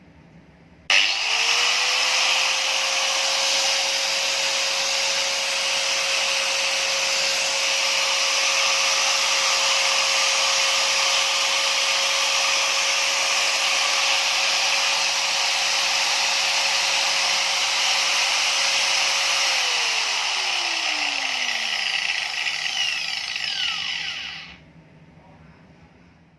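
Makita 9553B 4-inch angle grinder switched on, its motor quickly running up to a steady high whine and running freely. Near the end it is switched off and the whine falls in pitch as it spins down, then the noise fades out.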